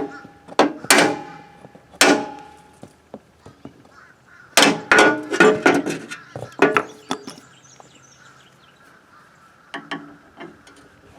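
Hammer blows on metal, driving a retaining key out of a Craftsman lawnmower's deck mount. A few separate strikes, some ringing briefly, then a quick run of several strikes in the middle, and a couple of lighter taps near the end.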